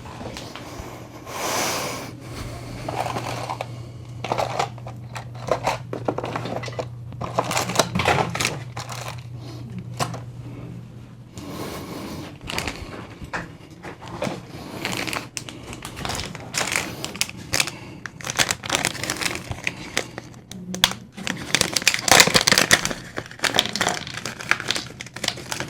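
Small plastic bags and packaging crinkling and rustling, with irregular clicks and taps as small parts are handled and sorted. A steady low hum runs underneath and stops about halfway through.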